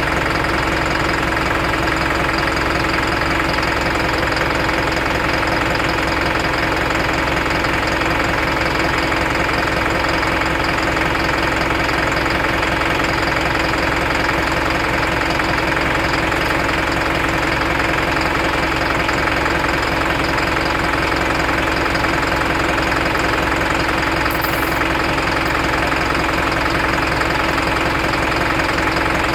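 Isuzu NPR truck engine idling steadily. It is running with the loose cylinder 2 injector connector, the cause of the P0202 injector-circuit code, reconnected and strapped, which the mechanic says has put it right.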